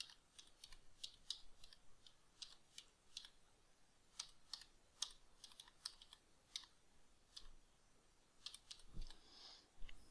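Faint, uneven typing on a computer keyboard: single key clicks in short runs with pauses between, and a soft, duller knock near the end.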